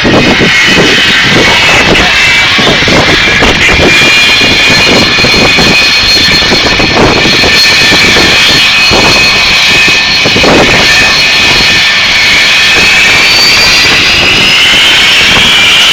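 Jet airliner's engines at takeoff power, very loud: a high whine over a rough, gusty rushing rumble as the jet blast buffets the microphone. The whine climbs in pitch over the last few seconds.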